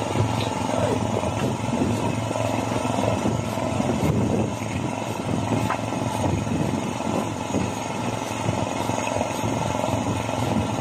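An engine drones steadily, with a few faint knocks over it.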